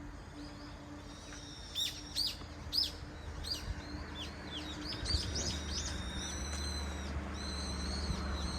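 Small songbirds chirping: a run of quick, high, downward-sweeping chirps, then a string of short flat high notes repeated near the end. A low rumble comes in underneath about five seconds in.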